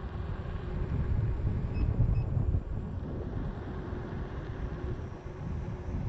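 Wind buffeting the camera microphone over tyre rumble on asphalt as a Gotway MCM5 electric unicycle is ridden uphill at about 19 mph: a rough, gusty low rumble.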